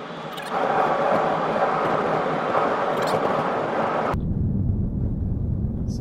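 Tyre and wind noise inside the cabin of a BMW i3 rolling downhill with no engine running. It grows louder about half a second in, then about four seconds in switches abruptly to a low rumble.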